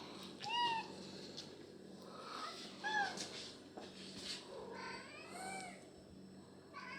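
Domestic cat meowing: about four short rising-and-falling meows, with a longer one a little past the middle.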